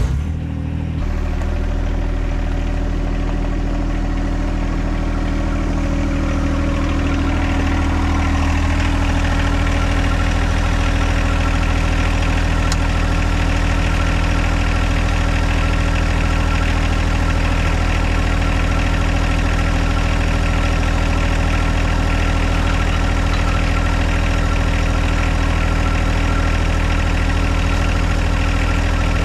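John Deere 2025R compact tractor's three-cylinder diesel engine starting up and settling into a steady idle.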